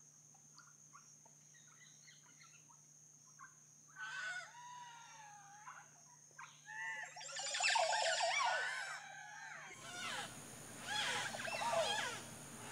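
Birds calling in a loud chorus of many overlapping calls, sparse at first and building from about four seconds in, over a steady high tone. The background changes abruptly near ten seconds in.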